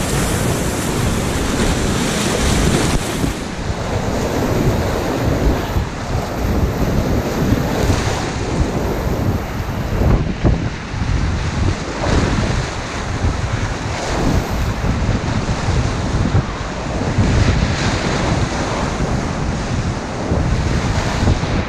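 Whitewater rapids rushing loudly and steadily around a tandem inflatable kayak, with waves splashing over the bow as it runs through them.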